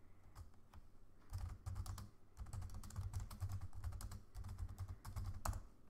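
Typing on a computer keyboard: a quick, uneven run of key clicks with soft thuds under them, stopping shortly before the end.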